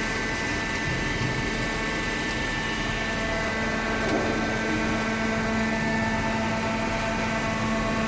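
Hydraulic waste paper baler's motor and hydraulic pump running, a steady hum with a constant low tone and several high whining tones.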